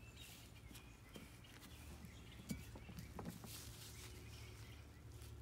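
Near silence: quiet outdoor background with a few faint, soft knocks and shuffles.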